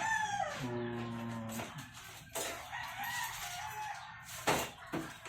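Rooster crowing: the tail of a long crow ends about half a second in, with fainter calls later. Two sharp knocks come partway through.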